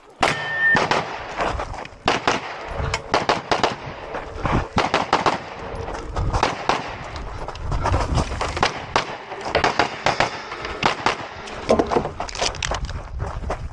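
Pistol firing a USPSA stage course of fire: rapid strings of sharp shots, many in quick pairs, with short gaps between groups, starting just after the start signal.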